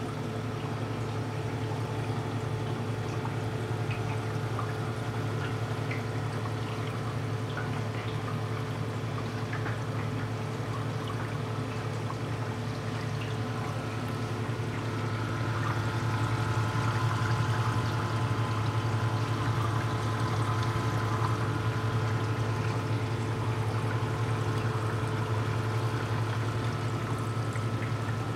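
Water pouring and trickling into a reef aquarium's sump, over a steady low hum of running equipment, growing a little louder past the middle.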